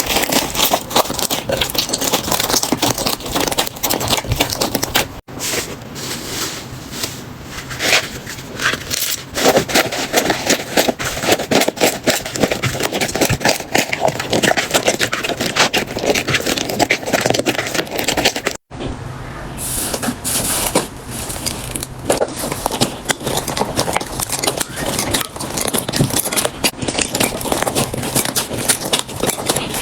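Slime being pressed, squeezed and stretched by hands close to the microphone, giving dense crackling, clicking and sticky popping. The sound changes abruptly at two cuts, about five seconds in and about two-thirds of the way through.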